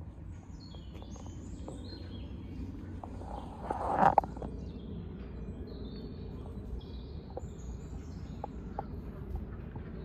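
Small birds chirping in the trees over a steady low background rumble. A brief, louder rustling swell ends in a sharp knock about four seconds in.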